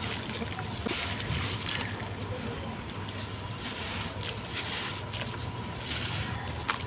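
Dry sand-cement blocks crumbling and crunching, a continuous gritty rasp with scattered sharp crackles and one louder crack near the end.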